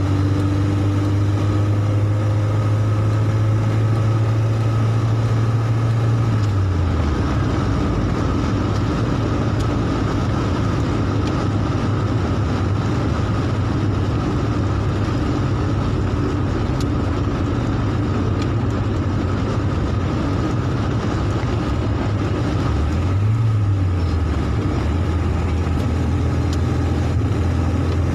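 Interior sound of a Mercedes-Benz car driving on a wet road: a steady low engine drone with tyre noise. The engine note drops about a quarter of the way in and briefly rises and falls again near the end.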